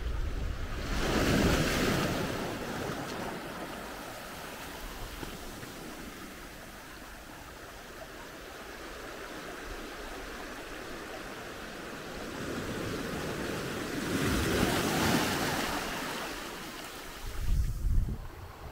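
Outdoor wind noise with two long rushing swells, about a second in and about fourteen seconds in, and gusts buffeting the microphone near the end.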